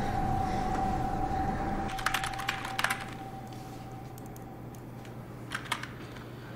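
Keys tapping on a computer keyboard: a quick run of keystrokes about two seconds in and a few more near the end, over a steady low hum.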